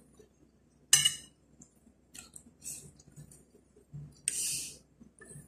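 Metal spoon and fork clinking and scraping on ceramic plates while eating, with one sharp clink about a second in, lighter taps after, and a short hissing scrape about four seconds in.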